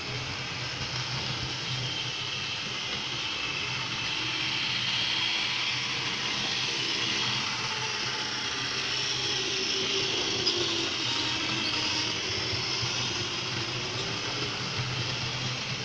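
Model diesel locomotive (CC 72001) running on its track: a steady mechanical whir of the small electric motor and gears, with the wheels rattling along the rails. The whir swells a little in the middle.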